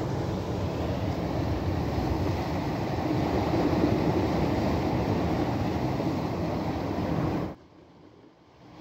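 Steady rumble of surf breaking on rocks, mixed with wind buffeting the microphone; it drops away abruptly about a second before the end.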